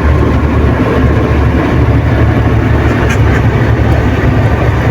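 Dump truck's engine and road noise heard from inside the cab while driving: a loud, steady low rumble.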